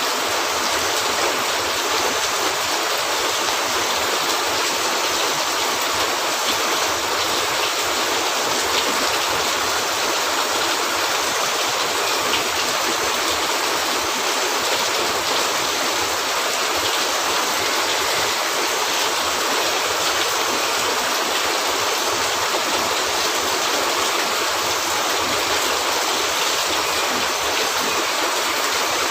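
Steady rain, a dense, even hiss that holds constant.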